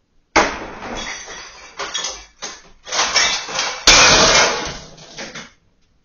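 A sudden loud bang from inside a refrigerator as a can of biscuit dough bursts, followed by about five seconds of crashing and clattering as the fridge shelves break and the contents fall and the door swings open, the loudest crash about four seconds in.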